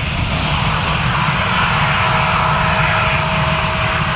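Jet airliner's turbofan engines running steadily at taxi power, with a faint thin whine about halfway through.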